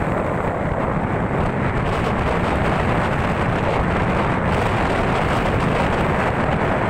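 Steady rushing wind and engine noise from a moving motorcycle, with the wind beating on the microphone.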